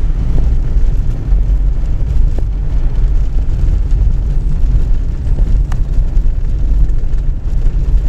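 Car cabin noise while driving on a snow-packed highway: a steady low rumble of tyres and engine.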